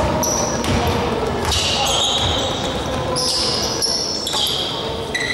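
Basketball shoes squeaking on a wooden gym floor, several short high squeaks from about a second and a half in, with the ball bouncing during play.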